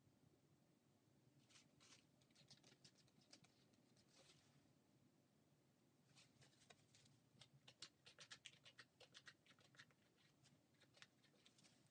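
Faint clusters of quick ticks and scrapes: a palette knife dabbing and pressing thick oil paint onto the painting surface.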